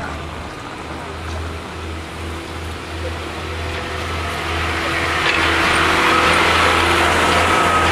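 Class 143 Pacer diesel multiple unit pulling away from the platform, its underfloor diesel engine running with a steady low note. The sound grows louder as the train gathers speed and passes close by, and a high whine comes in about halfway through.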